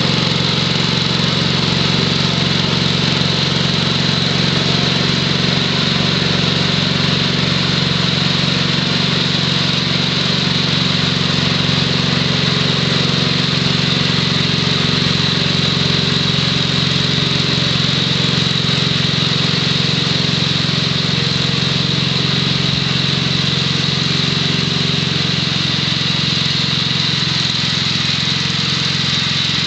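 Tractor-mounted snowthrower powered by a 6 HP Tecumseh H-60 single-cylinder engine, running steadily under load while clearing snow.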